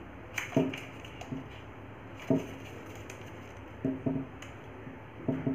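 Paper origami crown being creased corner by corner with the fingers: a few short, sharp crinkles and taps at irregular gaps, the loudest about half a second in, a little after two seconds and around four seconds, over a steady low background hum.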